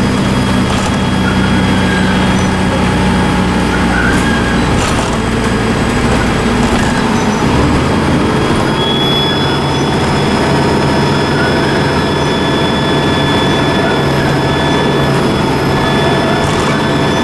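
Dennis Trident II double-decker bus engine running, with a thin, steady, high turbocharger whistle over it. About halfway through, a second, higher whistle rises in and holds as the engine note changes.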